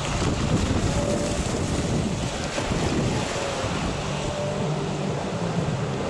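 Rough sea surf breaking and washing in steadily, with strong wind buffeting the microphone.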